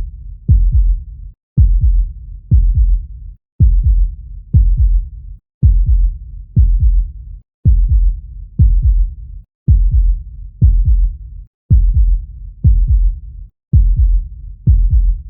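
A heartbeat sound: low, deep thuds about once a second, repeating evenly in a steady pulse. The beats fall in pairs every two seconds, each pair followed by a brief silent gap.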